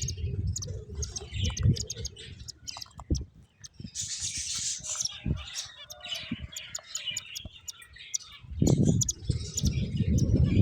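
Finches chirping, with many short high calls overlapping. Low thumps and rustling come in near the start and again in the last two seconds, and are the loudest sounds.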